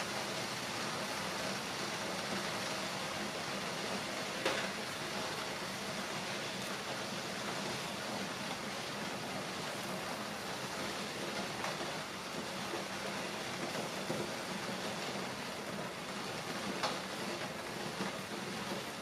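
Portable cassette gas stove burner running with a steady hiss under an aluminium foil pan of simmering udon. A few faint clicks, one about four seconds in and another near the end.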